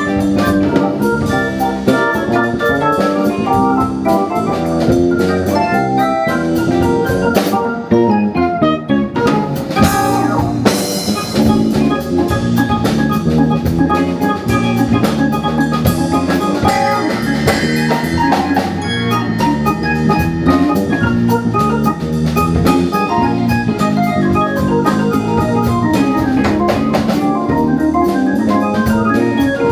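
Jazz-funk band playing live: a keyboard with an organ sound over electric bass, electric guitar and a drum kit.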